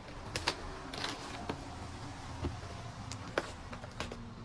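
A paper shipping mailer being handled and pulled open: crinkling and rustling with scattered sharp crackles at irregular intervals.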